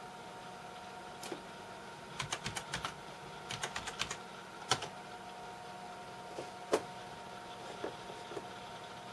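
Typing on a computer keyboard: two quick runs of keystrokes, then a few separate single clicks, over a faint steady electronic whine.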